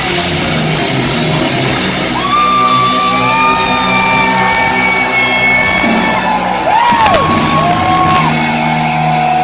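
Live heavy metal band playing loudly in a large hall. A high melody of long held notes sits over the band, dipping and rising sharply about seven seconds in.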